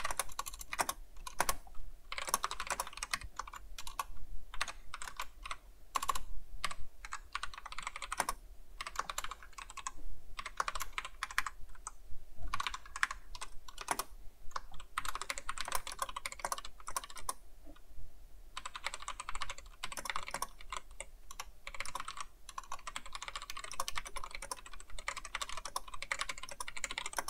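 Typing on a computer keyboard: rapid key clicks in runs, with brief pauses between words and phrases.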